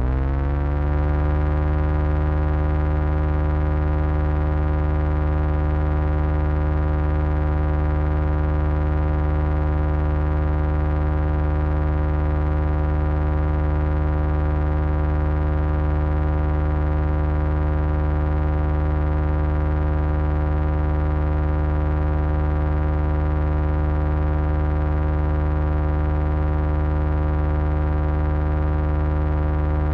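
Synthesized digital signal tone: a steady low drone with many overtones. It bends slightly up in pitch in the first second, then holds without change.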